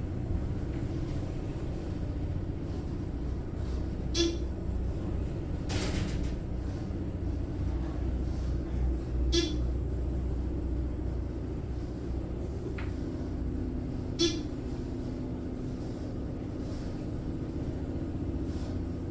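Old elevator car travelling, with a steady low rumble and a short click-and-tone repeating about every five seconds. A steady hum comes in about two thirds of the way through.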